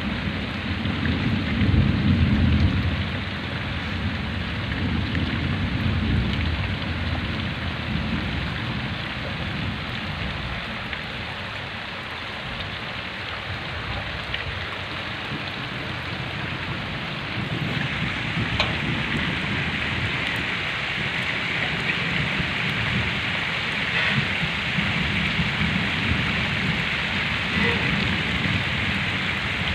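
Heavy rain pouring steadily, a constant hiss of drops on wet ground. A low rumble sits underneath at the start and again from about two-thirds of the way through.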